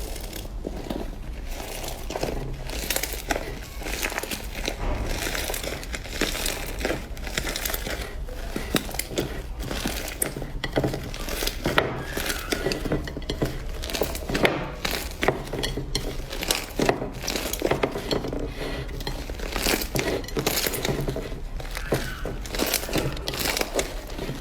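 Slime being squeezed, pressed and stretched by hand, giving a dense run of crackling clicks and small pops.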